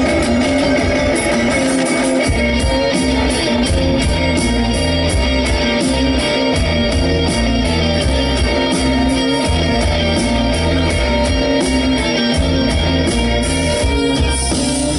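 Rock band playing live through a PA, electric guitars to the fore over bass and a steady beat. The low end grows heavier about two seconds in.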